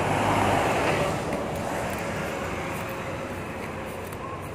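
Volvo B9TL double-decker bus, its six-cylinder diesel engine and tyres, passing close by and pulling away. The sound is loudest about half a second in and then fades steadily as the bus draws off.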